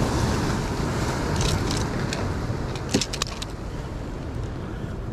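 Wind rumbling on the microphone with sea surf behind it, easing off after about three seconds, and a few light clicks and rattles about a second and a half and three seconds in.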